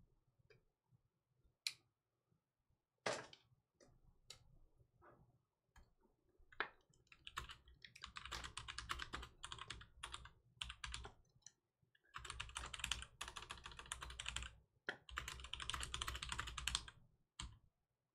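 Typing on a computer keyboard: a few scattered key clicks, then two runs of rapid keystrokes, each several seconds long.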